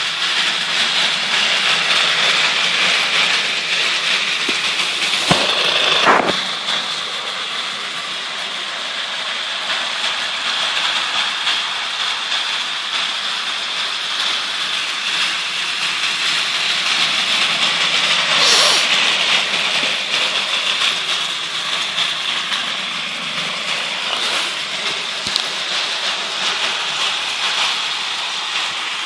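Battery-powered toy trains running on plastic track: a steady whirring of their small motors and gears with the wheels rattling along. A couple of sharp clicks come a few seconds in, and a brief louder swell about two-thirds of the way through.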